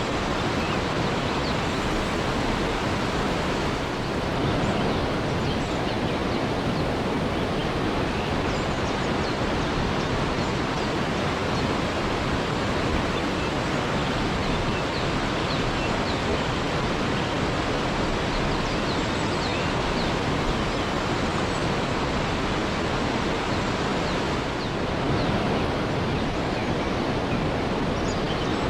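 Waterfall: a steady rush of falling water at an even level, with faint short high chirps here and there.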